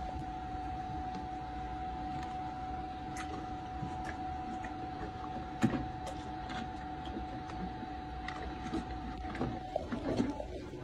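A horse drinking beer from a rubber feed bucket: scattered small clicks of lips and tongue in the liquid, with one louder knock about halfway, over a steady mechanical hum that stops near the end.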